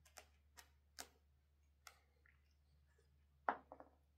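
Cat chewing dried matatabi (silver vine) fruit: faint, irregular crunchy clicks, with the loudest quick run of crunches about three and a half seconds in.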